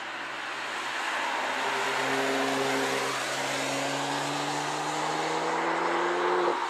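BMW 1 Series coupé accelerating out of a corner on a wet track, its engine note rising steadily in pitch over the hiss of tyres on a wet road, building to its loudest near the end.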